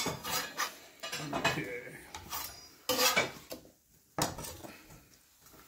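Utensils and cookware clattering and scraping: a few sharp knocks and scrapes on a griddle and a wooden cutting board as a cooked quesadilla is moved across.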